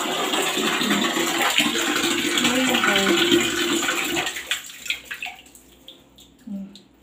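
Water running in a thin stream from a shower hose into a plastic basin already full of water, splashing on the surface; it dies away about four and a half seconds in, leaving a few small splashes and drips.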